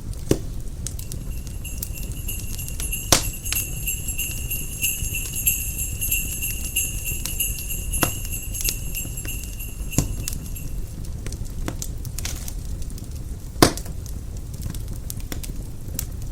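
Sleigh bells jingling steadily over a crackling fireplace fire. The bells stop a little past two-thirds of the way through, leaving the fire's low rumble and occasional sharp pops.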